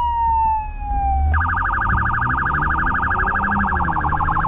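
Police siren recording played through a car's stereo speakers inside the cabin: a slow falling wail that switches about a second in to a fast warbling yelp.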